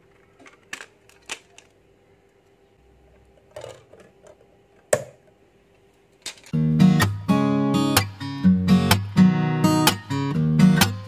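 A few light clicks and taps of a plastic CD jewel case and disc being handled, over a faint steady hum. About six seconds in, acoustic guitar music starts, strummed in a steady rhythm, and it is the loudest sound.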